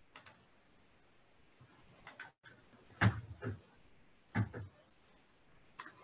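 Computer mouse and keyboard clicks with soft knocks from handling a computer while starting a screen share: about half a dozen short, separate sounds, the loudest around halfway through.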